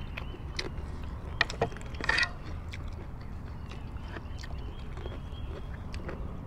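Close-up eating sounds: a few sharp crunches and mouth clicks from people biting and chewing food, the loudest a crackly crunch just after two seconds, over a steady low rumble.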